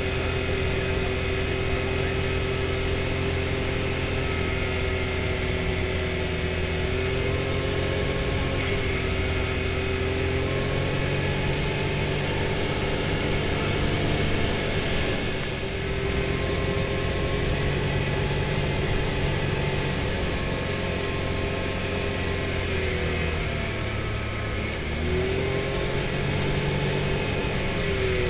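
Can-Am Maverick X3 side-by-side's turbocharged three-cylinder engine running at a steady trail cruise, with tyre noise on gravel. The engine note sags and picks back up about halfway through and again near the end as the throttle eases off and comes back on.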